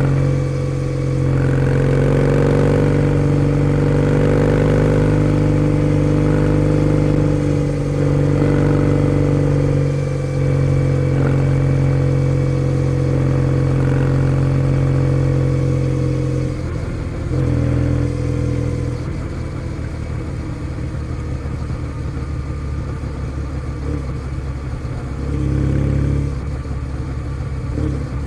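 Kawasaki W650's air-cooled parallel-twin engine through a POSH W1 aftermarket full exhaust, under way at a steady throttle. About two-thirds in the throttle eases and the exhaust note drops lower and quieter, with two short rises of throttle after that.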